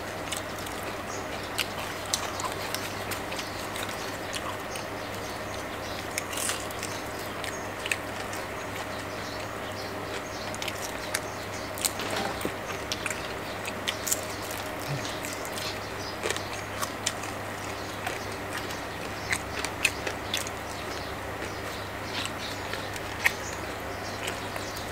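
Eating sounds of crispy pepper-fried salmon being bitten and chewed, with frequent short crunches and clicks throughout over a steady background hum.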